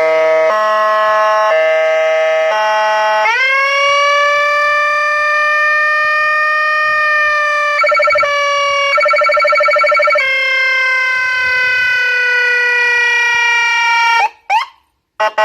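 Whelen HHS3200 electronic siren sounding through its speaker and cycling tones. First comes a hi-lo two-tone that alternates about once a second, then a sharp rise into a long wail that slides slowly down in pitch. A rapid pulsing tone cuts in twice, and the siren stops about 14 seconds in, followed by two short blips.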